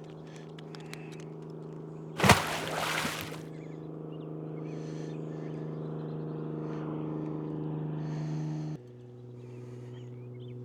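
A steady engine hum that drops to a lower pitch about nine seconds in. About two seconds in comes a loud burst of rushing noise lasting about a second, and faint bird chirps sound over the hum.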